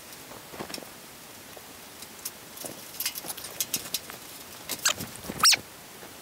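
Electrical wires being handled and twisted together by hand overhead: scattered light clicks and rustles, with one short, louder squeak falling in pitch near the end.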